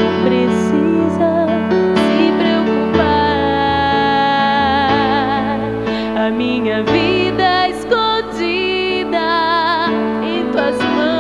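Slow, tender worship ballad: sustained chords under a melody line with wide vibrato.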